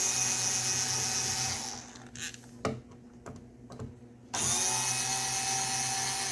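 Cordless drill/driver with a star (Torx) bit running on the speaker box's screws in two steady runs of about two seconds each, each winding down as it stops, with a few light clicks in between.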